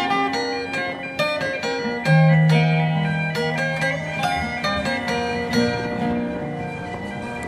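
Background acoustic folk guitar music: single notes plucked one after another.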